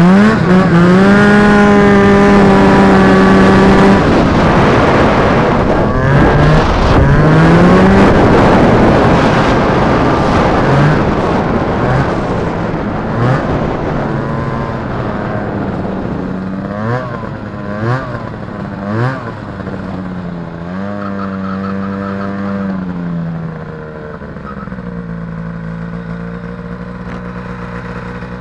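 Snowmobile's two-stroke Rotax 503 engine revving up and running at speed, then easing off with several short quick revs. It settles to a steady idle for the last few seconds.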